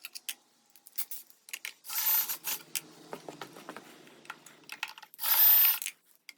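Cordless drill spinning out the shroud bolts on a small mower engine in two short runs, about two seconds in and again near the end. Small metallic clicks and clatter come between the runs as the bolts and tool are handled.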